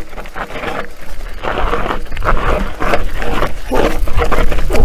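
Orbea Rallon enduro mountain bike rolling down a loose, rocky trail: tyres crunching over stones and the bike rattling, in uneven surges about every second, over a steady rumble of wind on the microphone.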